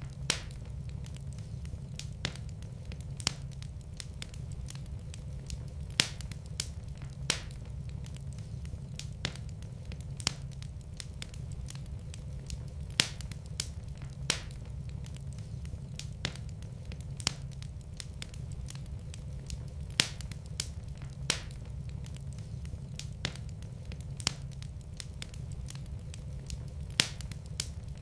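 Wood fire burning in a fireplace: sharp, irregular crackles and pops over a steady low rumble of flame.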